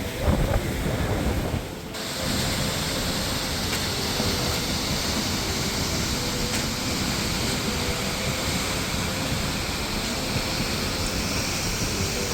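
A waterfall rushing steadily, with wind buffeting the microphone. The noise dips briefly about two seconds in.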